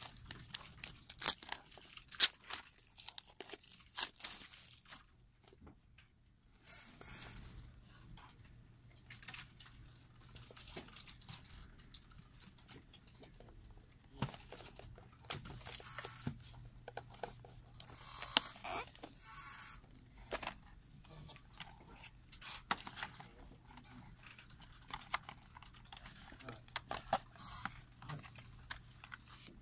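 Plastic shrink wrap being picked at and peeled off a CD box set, with sharp crackles and clicks in the first few seconds. Then come bouts of crinkling and rustling as the cardboard packaging and a plastic CD jewel case are handled, with occasional light clicks. A faint steady low hum lies underneath.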